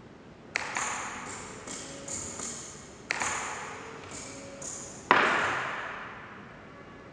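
Electro-mechanical baboon automaton working wooden cups on a wooden table. Three sharp knocks come about two and a half seconds apart, each with a ringing tail and a few lighter taps after it. The loudest, about five seconds in, comes as a cup is set back down.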